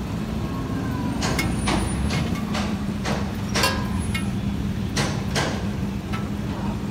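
Thin roti dough being slapped, pressed and stretched by hand on an oiled steel counter: a run of sharp slaps and taps, about nine of them over four seconds. Under it runs a steady rumble of street traffic and engine hum.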